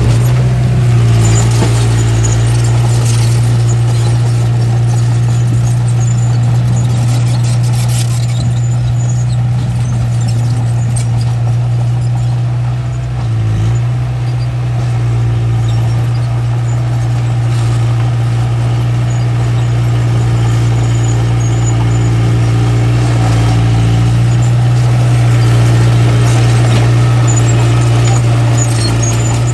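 Small bulldozer's diesel engine running steadily under load, dipping briefly about halfway through, with scattered short high squeaks.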